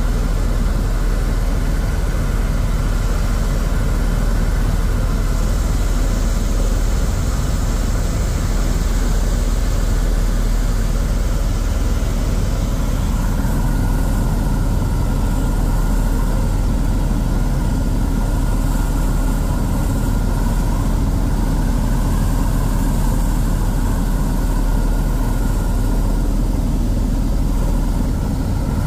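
Helicopter in flight: the steady, loud drone of the turbine and rotor, with a faint steady whine above it. The low rumble grows a little stronger about halfway through.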